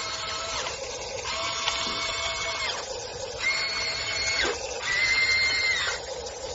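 Huina 1594 1:14 RC excavator's small electric motors whining through their gearboxes in about four bursts of a second or so, each starting and stopping as the arm and bucket are worked. Near the middle, one burst spins down with a falling pitch.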